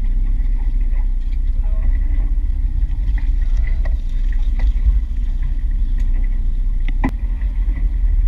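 Steady low rumble aboard a fishing boat on the ocean, with scattered small clicks and one sharp knock about seven seconds in.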